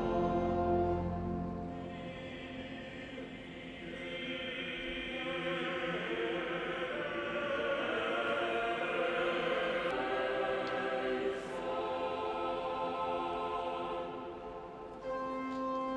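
Choir singing slow sacred music in long, held chords.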